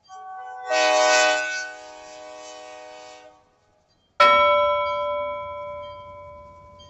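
A horn sounds a chord of steady tones for about three seconds, loudest about a second in, then fades out. After a short dead silence comes a single sudden bell-like strike that rings and slowly dies away.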